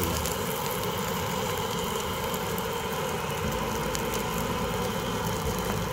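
Battered dried-pollack fillets frying in oil on a seasoned iron griddle: a steady sizzle, with the even rush of the gas burner heating it underneath.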